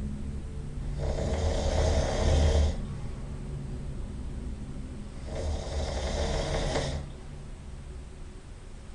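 Loud snoring: two long snores about four seconds apart, each lasting under two seconds, with quieter low breathing in between.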